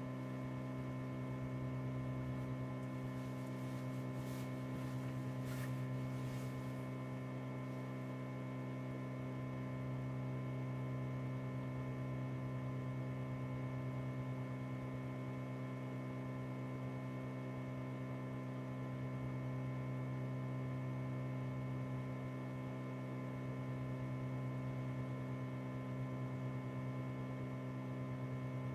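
Steady electrical mains hum with a buzzy stack of overtones, unchanging throughout, with a few faint clicks about four to six seconds in.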